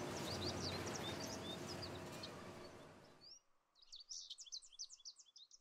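Faint songbird chirping and twittering in quick, short high notes over a steady background hiss. The hiss fades and drops away about three seconds in, leaving the chirps on their own.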